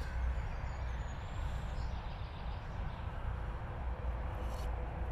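Steady rumble of M62 motorway traffic: a continuous low hum with a hiss over it, no single vehicle standing out.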